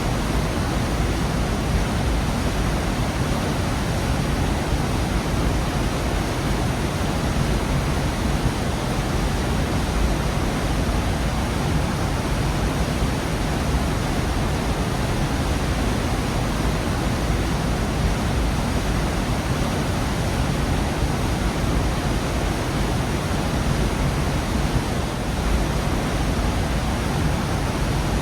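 Waterfall in a gorge: a steady, unbroken rush of falling water.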